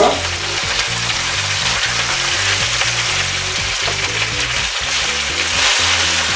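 Floured chunks of heart sizzling in hot oil in a frying pan as they are turned over, with bacon frying in lard in a second pan. A steady sizzle throughout.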